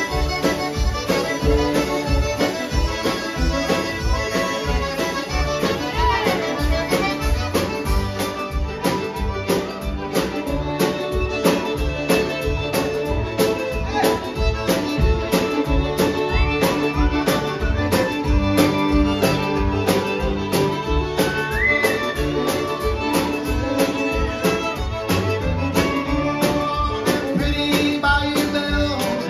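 Live country band playing an instrumental passage: two fiddles and an accordion over guitar, pedal steel, upright bass and drums keeping a steady beat.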